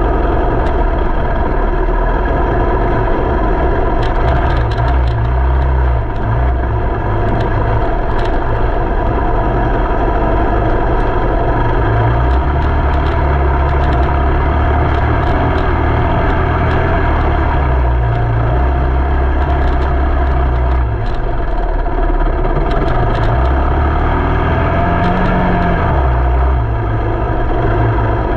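A vehicle engine running steadily, a loud low drone that swells and eases a little, with scattered light clicks or rattles over it.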